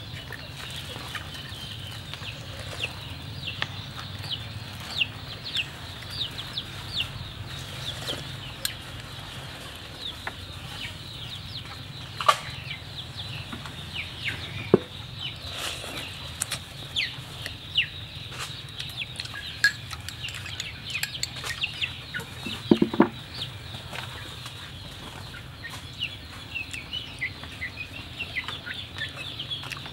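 Chickens clucking and chicks peeping throughout: many short, falling peeps. Now and then a metal spoon clinks against a ceramic bowl.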